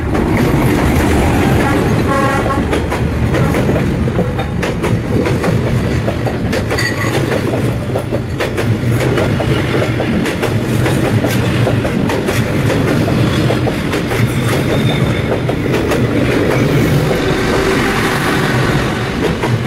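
Train passing close by on a narrow street-side track, a loud steady rumble with repeated knocks of the wheels. A short horn blast sounds about two seconds in.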